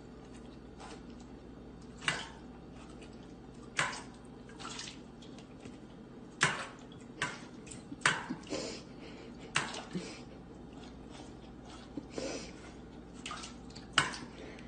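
Stainless steel dog bowls clanking on a wooden floor and water splashing as a dog noses and paws at its water bowl: irregular sharp knocks, each ringing briefly, every second or two.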